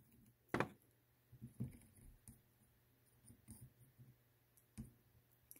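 Faint scattered clicks and light taps from handling a soldering iron on a wire connector, the loudest about half a second in, over a low steady hum.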